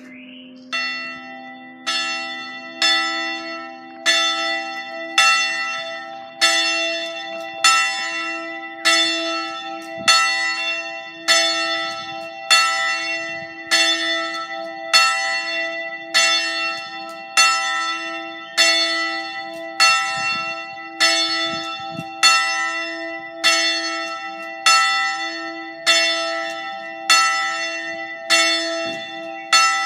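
A single bronze church bell, one of three cast by Giovanni Battista Mazzola in 1845, swung full-circle by electric Ambrosian-system ringing, its clapper striking about once a second with each stroke ringing on into the next. The strokes begin just under a second in.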